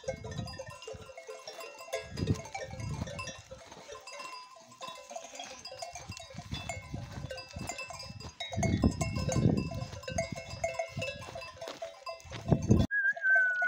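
Many sheep and goat bells of a flock clinking and ringing at several different pitches as the animals move and graze, with gusts of wind rumbling on the microphone. The sound cuts off suddenly near the end.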